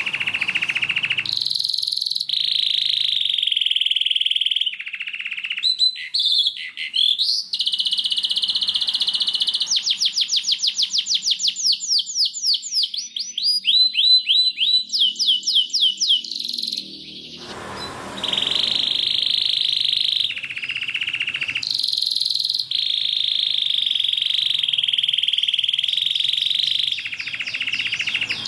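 White domestic canary singing a long, continuous song of trilled rolls, with a run of fast falling sweeps in the middle and a brief lull about two-thirds of the way through.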